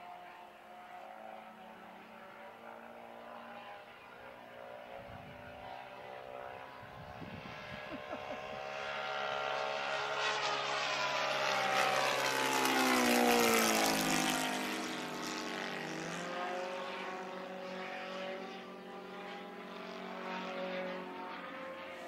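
Saito FG-57T petrol boxer-twin four-stroke engine and propeller of a 50cc RC model Corsair running in flight. It grows louder as the plane makes a close pass about halfway through, drops in pitch as it goes by, then fades as it flies off.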